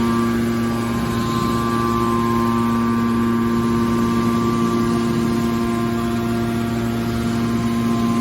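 Hydraulic metal baler running, a steady mechanical hum with a constant drone.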